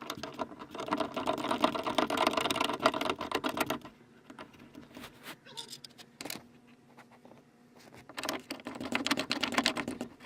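Hand ratchet with a Torx bit clicking rapidly as it turns a hard-top bolt, in a run of about four seconds and another of about two seconds near the end, with a few scattered clicks between.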